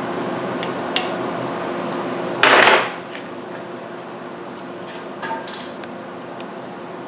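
Welding arc on the aluminum transmission stub, buzzing steadily, then cut off about two and a half seconds in right after a short loud hiss. After that come a few faint metallic clicks and two short high squeaks.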